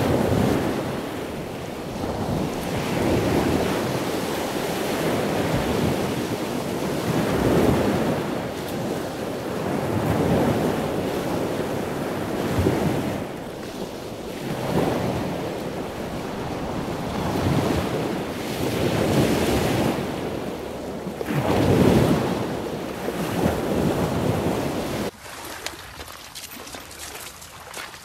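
Sea surf on a beach mixed with wind buffeting the microphone, a loud rushing noise that surges every two to three seconds. Near the end it drops suddenly to a quieter background.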